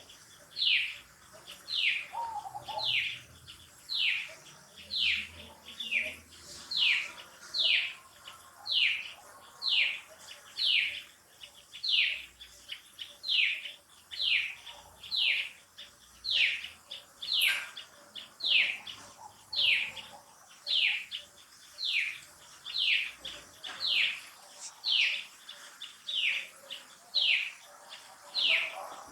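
A long, unbroken series of high, piercing chirping calls, each sliding downward in pitch, about three every two seconds with a very even rhythm.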